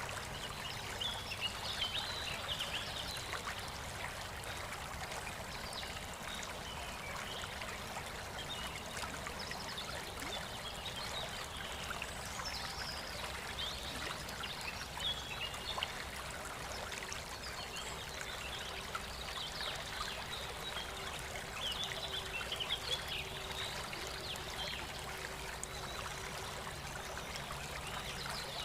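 Water of a stream flowing and trickling steadily, with short high bird chirps now and then.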